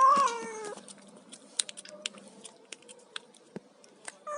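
Domestic cat meowing once, the call falling in pitch, followed by a string of sharp, irregular clicks; another meow begins right at the end.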